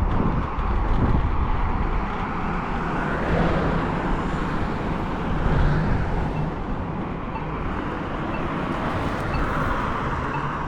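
Wind rushing and buffeting over the microphone while riding an Apollo Go electric scooter, with steady road noise from the ride underneath.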